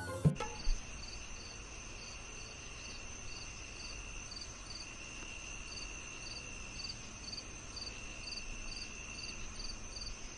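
Crickets chirping: a steady high trill with a pulsed chirp repeating about two to three times a second, with a couple of short soft knocks at the very start.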